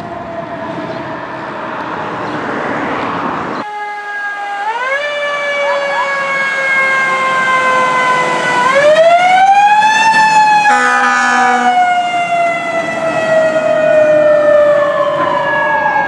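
A fire truck siren wailing: a steady, slowly falling tone first, then about four seconds in a new wail rises sharply, sinks slowly, climbs again and winds down through the rest. A short horn blast sounds about eleven seconds in.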